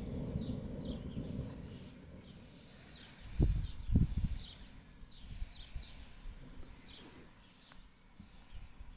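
Low rumble of distant thunder fading over the first two seconds, with small birds chirping repeatedly. Two low thumps come about three and a half and four seconds in.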